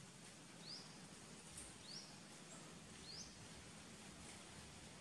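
Faint forest ambience with a bird repeating a short, high, rising chirp three times, about a second and a quarter apart.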